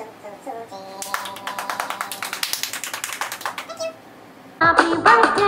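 Hands clapping in a quick, dense run for about three seconds, just after the last notes of singing. Near the end, loud music with a singing voice comes in.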